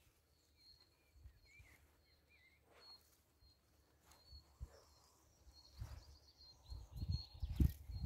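Rustling of grass and soft knocks from hands working close to the mic while picking fairy ring mushrooms, growing louder near the end. Earlier a few faint bird chirps are heard in the outdoor quiet.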